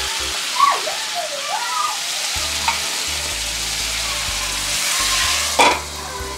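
Chicken tsukune patties sizzling in a frying pan. About five seconds in the sizzle swells as sake goes into the hot pan to steam them, then a sharp clank as the lid goes on, after which the sizzle is quieter.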